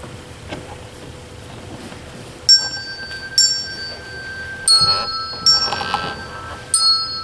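Handbells rung one at a time as a slow tune: after a short quiet start, five separate strikes about a second apart, each note ringing on under the next.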